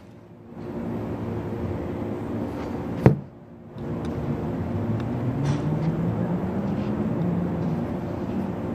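Steady outdoor background drone of engine noise, with a low engine tone slowly rising in pitch through the second half, and one sharp click about three seconds in.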